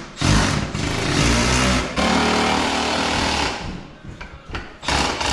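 Cordless impact driver running in two long runs, driving screws up into a ribbed steel ceiling panel, then a few short bursts near the end as the screw is snugged down.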